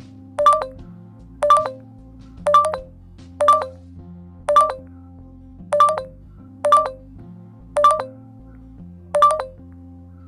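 A short electronic beep repeating about once a second, ten times, over soft background music.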